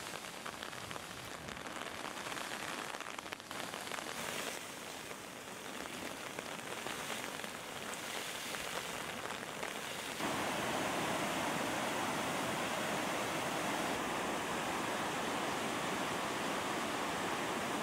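Rushing muddy floodwater and heavy rain, a steady noisy rush. About ten seconds in it cuts abruptly to a louder, even rush of a river in full spate.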